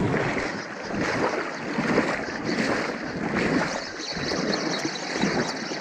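River water rushing and sloshing, with wind buffeting the microphone, rising and falling in level.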